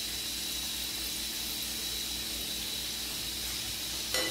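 Pressure cooker letting off steam: a steady hiss with a thin, high whistle, over frying oil sizzling in a pan. A sharp knock about four seconds in.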